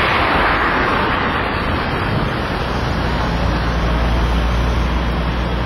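Steady road traffic noise, with a vehicle engine's low hum coming in about two seconds in.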